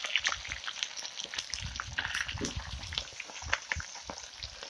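Hot oil sizzling in an iron kadhai as battered seafood pieces deep-fry, with a dense, irregular crackle and pop over a steady hiss.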